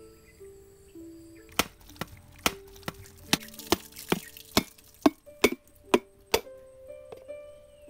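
A mature coconut being struck hard over and over to crack it open: about a dozen sharp knocks, roughly two a second, starting about a second and a half in and stopping a little before the end. Light plucked background music plays underneath.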